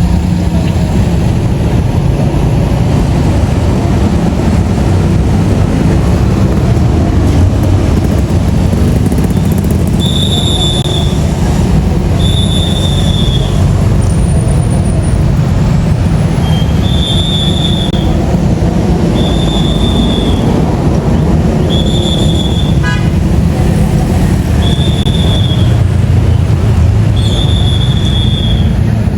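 Loud, steady rumble of heavy vehicles and road noise. From about a third of the way in, a high-pitched tone sounds again and again, each about a second long and every two to three seconds.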